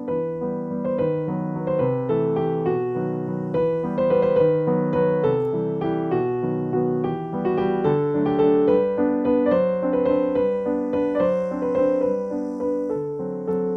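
Background piano music: a steady run of melodic notes, each struck and fading.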